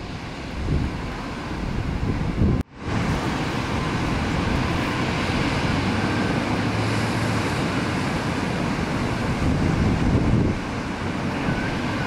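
Wind buffeting the microphone over the steady wash of breaking surf, with a brief dropout in the sound a little under three seconds in.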